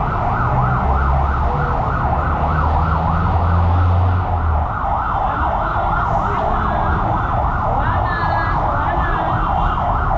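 Electronic siren in fast yelp, rising and falling about four times a second without a break, over a low vehicle engine rumble that is strongest in the first half.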